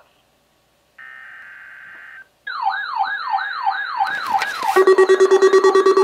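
Weather alert radios going off: a brief steady tone, then a loud wavering siren-like alert alarm repeating about twice a second, joined near the end by static and a second receiver's fast pulsing beep.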